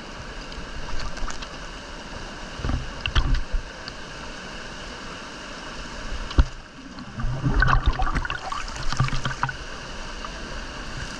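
Steady rush of water with irregular splashes and low thuds, and one sharp knock about six seconds in.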